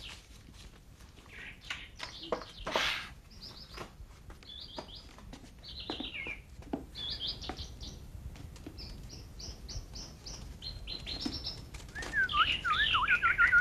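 Caged finches chirping: quick runs of short high chirps, and near the end a louder, lower warbling song.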